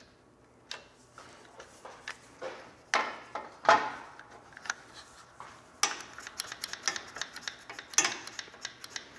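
Clamps being fitted to hold a metal mounting bar against a zero-turn mower: scattered clicks, metal knocks and rubbing, with the loudest knock a little under four seconds in and another sharp one about eight seconds in.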